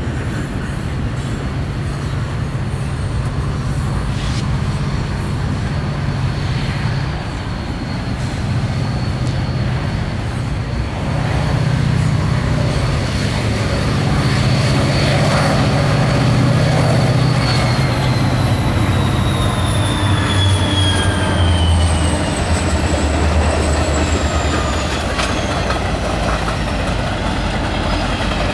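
Diesel freight locomotives passing close by: a deep engine drone that swells and then drops in pitch as the lead units go by. A high thin whine holds steady and then slides down in pitch over a few seconds. Wheels click over the rail joints throughout.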